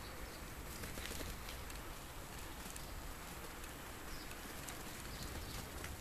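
Quiet residential street ambience: a steady low rumble with faint bird chirps and a few light ticks.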